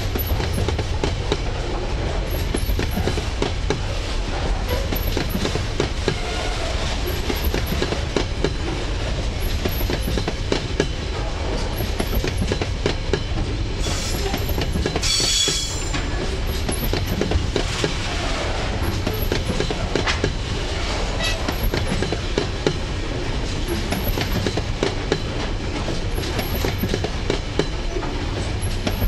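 Container wagons of a freight train rolling past close by: a steady low rumble of steel wheels with constant clickety-clack over the rail joints. A brief high-pitched wheel squeal comes about halfway through.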